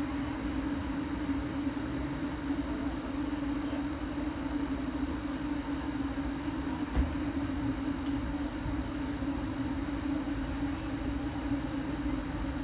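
Steady hum of a large swarm of light-show drones overhead, the many propellers blending into one continuous low drone, with a single brief knock about halfway through.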